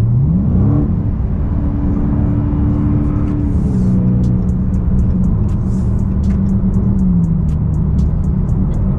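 The 2021 Dodge Charger Widebody Scat Pack's 6.4-litre 392 Hemi V8 revs up hard under acceleration, its pitch climbing quickly in the first second. It then drops in two steps as the automatic gearbox upshifts.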